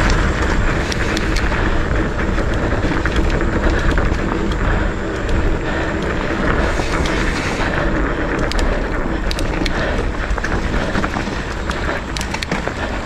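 Wind buffeting the camera microphone and mountain bike tyres running on a dirt trail, with scattered sharp clicks and rattles from the bike over bumps. It eases off slightly near the end as the bike slows.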